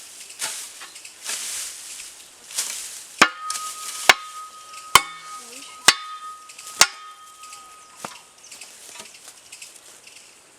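A metal hoe chopping into weedy ground, five sharp strikes about a second apart that leave a ringing metallic tone, after a few seconds of rustling.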